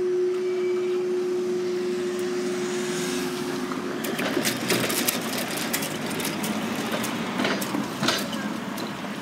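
Level-crossing barrier machines' hydraulic pump whining at a steady pitch as the barriers rise, cutting off about four seconds in when the booms are up. After it come scattered knocks and clicks over road traffic noise.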